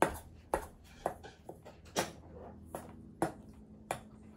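A spoon stirring dry cornmeal and flour in a stainless steel mixing bowl, knocking against the bowl in about seven irregular clinks.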